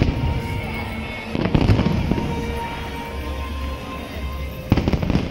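Fireworks going off with music playing: a sharp bang at the start, another about a second and a half in, and two close together near the end, each trailing off.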